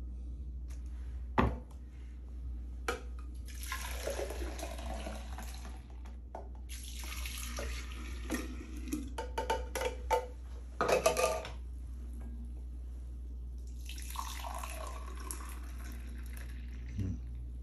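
Fresh pear juice poured from a plastic measuring jug into a glass pitcher, then from the pitcher into a glass: three spells of pouring and splashing, with a few clinks near the middle. A sharp knock about a second and a half in, and a steady low hum underneath.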